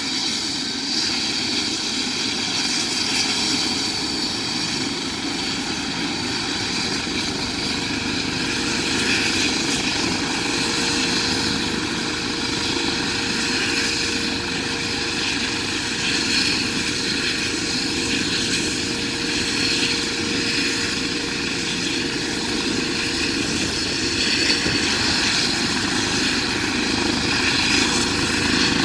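Air ambulance helicopter running on the ground before take-off: a steady engine whine over a constant rumble of rotor noise.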